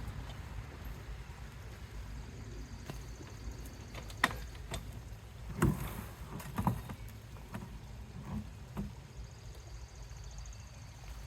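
Scattered knocks and thumps from hands-on garden work, likely the man shoveling or dumping compost and mulch into the bed, over a steady low rumble. The sharpest knock comes about four seconds in, and a few more come in the middle of the clip.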